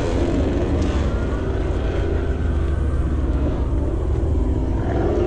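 A steady low engine drone whose pitch slowly wavers.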